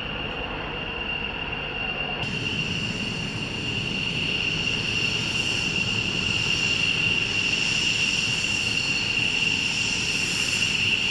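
Aircraft engines running as a military aircraft taxis: a steady high whine over a low rumble, growing gradually louder.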